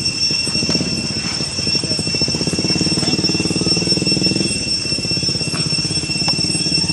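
An engine running steadily with a fast-pulsing low rumble that swells for a couple of seconds near the middle, over a steady high-pitched drone.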